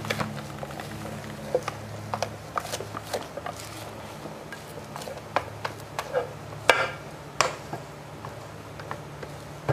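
Glass bowl knocking and clinking against a stainless steel stand-mixer bowl as sticky melted marshmallows are tipped and scraped out: scattered sharp knocks, a few ringing briefly, the loudest two near the end. A steady low hum runs underneath.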